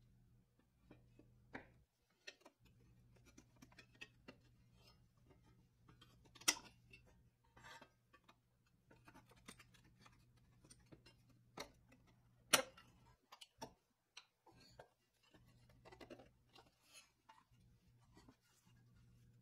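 Faint scattered clicks, taps and scrapes of a flat metal blade prying up the tabs of a rusted pressed-steel toy car body, with two sharper metallic clicks about six and twelve seconds in.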